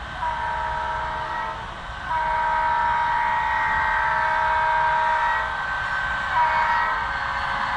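HO scale model diesel locomotive's sound decoder blowing a multi-chime air horn: two long blasts and then a short one, the opening of the long-long-short-long grade-crossing signal.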